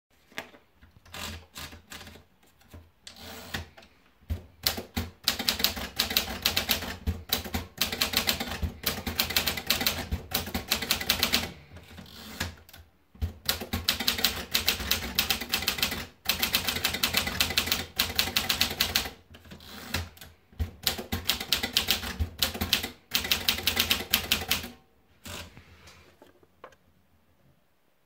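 Smith-Corona Silent portable manual typewriter: a few scattered clicks and rattles as a sheet is fed in, then rapid runs of keystrokes clacking, broken by short pauses between lines.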